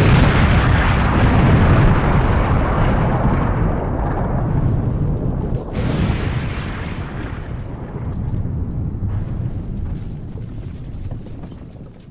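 A large explosion sound effect: a heavy blast rumbling on and slowly dying away, with a second blast about six seconds in, fading out near the end.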